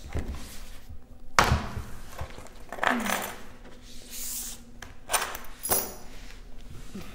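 Books and papers handled on a desk: a few knocks as books are closed and set down, the loudest about a second and a half in, with paper rustling as sheets and books are slid across the desktop.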